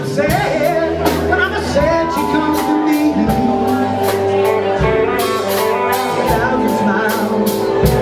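A live rock band playing: electric guitar holding long sustained notes over electric bass and a drum kit with frequent cymbal strokes, and a man's voice singing in places.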